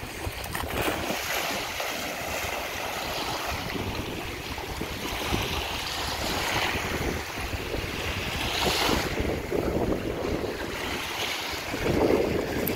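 Small waves washing in and breaking on the shore in surges every few seconds, with wind rumbling on the microphone.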